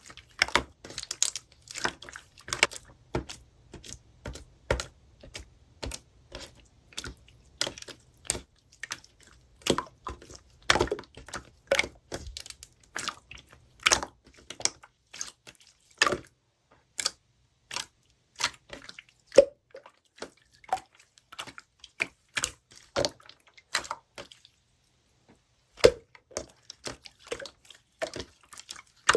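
Slime being squeezed and pressed by hand, giving a run of irregular sticky clicks and pops, several a second, that stop for a moment about four-fifths of the way through.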